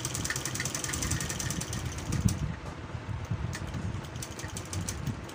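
Sewing machine stitching through cloth: a rapid, even clatter of the needle mechanism over a low rumble, with the clicks growing sparser after about two seconds.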